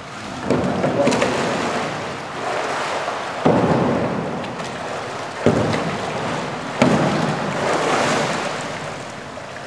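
Water splashing and sloshing as a narrow racing kayak is rolled over and brought back upright, with several sudden splashes as the boat and paddle hit the water.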